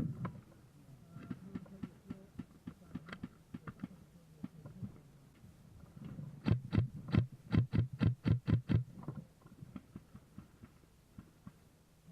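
Airsoft gun firing a rapid string of about a dozen sharp shots, about five a second, starting a little past halfway. Scattered lighter clicks and knocks come before it.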